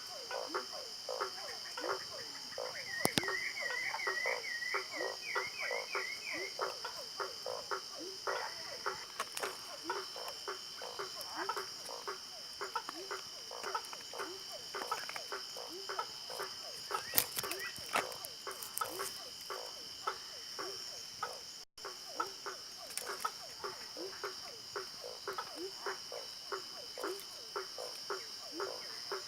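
Frogs calling in a chorus: a dense run of short calls, two or three a second, over a steady high trill. A brief warbling trill joins near the start.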